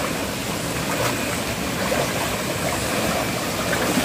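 Stream water flowing steadily, an even rushing noise.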